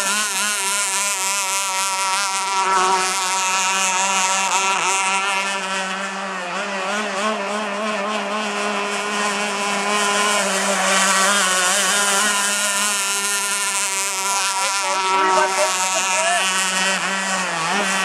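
Stock Zenoah 260 two-stroke gas engine of an RC racing catamaran running at high revs on the water, a buzzing note whose pitch wavers as the boat runs.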